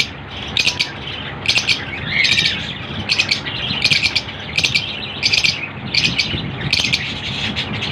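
Small pet parrots kept as 'love birds' chattering: a steady run of short, sharp, high-pitched chirping squawks, about two a second.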